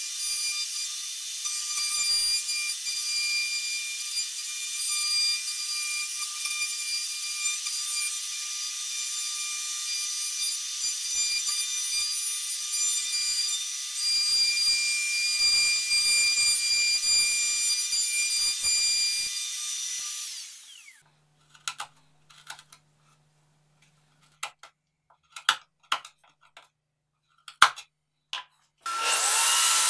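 DeWalt plunge router running at speed with a steady high whine while cutting a recess in plywood. It is switched off about two-thirds through and winds down, followed by scattered small clicks and taps. Near the end another power tool starts up with a steady loud running sound.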